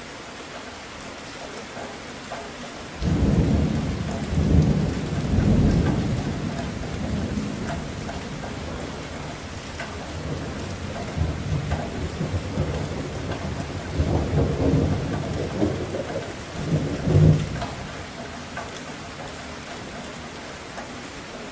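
Strong wind buffeting the camera's microphone in irregular low rumbling gusts over a steady hiss of wind and rain. The gusts are loudest a few seconds in and again twice in the second half.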